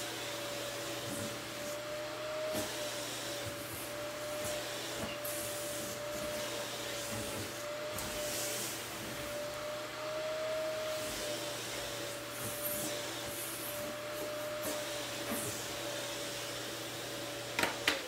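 Canister vacuum cleaner running with a steady whine, its suction noise rising and falling as pleated dress fabric is drawn into the hose. Near the end it clicks off and the motor whine begins to fall as it spins down.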